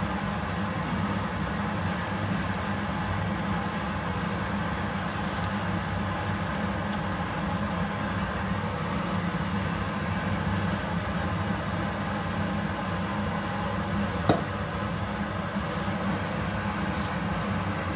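Steady hum and hiss of a pot of corn boiling on a gas stove burner while vegetables are added, with a few faint clicks and one sharp knock about fourteen seconds in.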